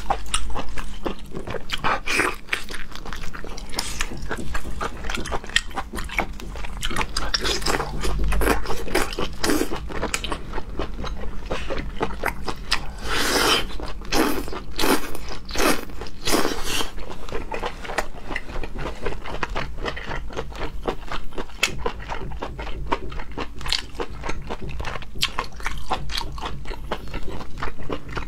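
Close-miked chewing and biting of whole small octopuses in a spicy red sauce: a dense run of mouth clicks and smacks, busiest about halfway through.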